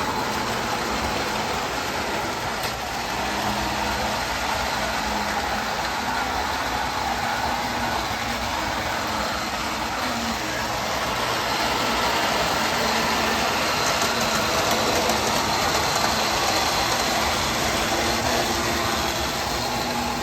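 Lionel postwar O-gauge model train running on its metal track: a steady motor whir with the rolling rattle of wheels on the rails, getting a little louder for a few seconds past the middle.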